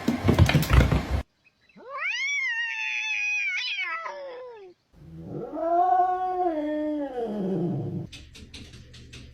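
A domestic cat yowling in two long drawn-out calls, the first high and wavering, the second lower, rising and falling. They are preceded by a loud, noisy clatter lasting about a second, and a quick even ticking starts near the end.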